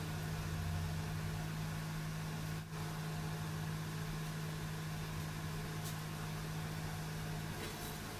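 Steady low mechanical hum of a machine running in the room, such as a fan or compressor, with a strong even low tone that drops away near the end.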